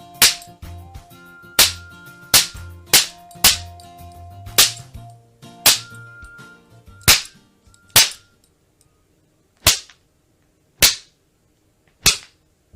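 A series of sharp whip-crack and slap sound effects, about a dozen in all. They come close together at first over faint steady tones, then spread out to single cracks a second or more apart.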